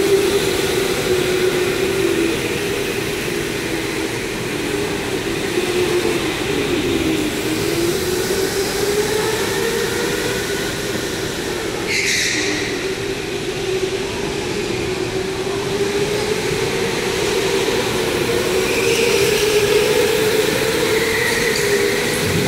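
Electric go-karts running round an indoor track: a steady motor whine that wavers in pitch as the karts speed up and slow down, with a short hiss about twelve seconds in.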